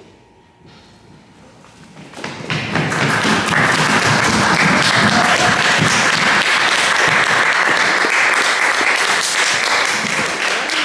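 An audience applauding, starting about two seconds in and holding steady to the end.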